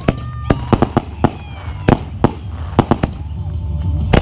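Aerial fireworks going off: about ten sharp bangs at irregular intervals over a low rumble, with thin whistling tones that glide in pitch and one falling away about a second and a half in.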